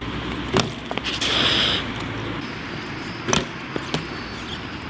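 BMX bike rolling on concrete with a steady tyre hiss. There is a brief louder rush about a second in, and a couple of sharp knocks from the bike hitting the ground, about half a second and just over three seconds in.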